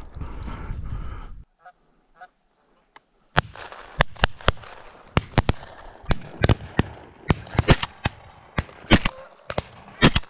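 Canada geese honking in flight, then from about three seconds in a rapid string of shotgun shots at the flock, some loud and close, others fainter.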